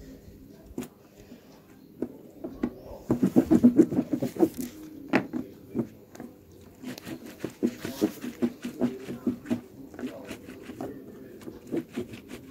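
Wet cloth napkins being scrubbed by hand against the ridged washboard of a plastic washtub: a run of quick, irregular rubbing strokes with water splashing, busiest a few seconds in and again around the middle.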